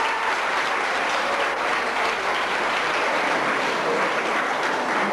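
Audience applauding, a dense, even clapping at a steady level.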